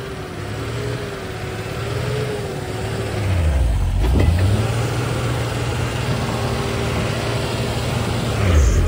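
Diesel engine of a concrete mixer truck running under load. Its steady hum sags in pitch and picks up again about four seconds in and once more near the end.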